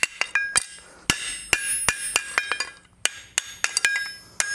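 Hand hammer striking hot steel flat stock on an anvil in a rapid series of blows, each ringing briefly, with a short break about three seconds in. The blows drive the top of the split end down to fill the gap left by the chisel cut.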